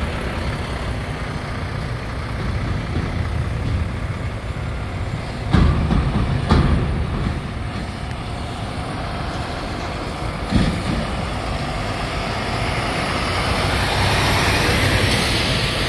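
Heavy truck traffic: a steady low rumble of diesel semi-trucks, with three loud bangs about a third and two-thirds of the way through. Near the end a tractor-trailer hauling a shipping container passes close, its noise swelling.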